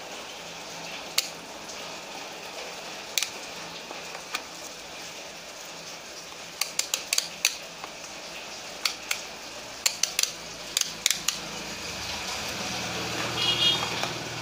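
Rotary selector dial of a handheld digital multimeter being turned, giving a series of sharp clicks as it steps through its positions, bunched together about halfway through, over a steady hiss that grows a little louder near the end.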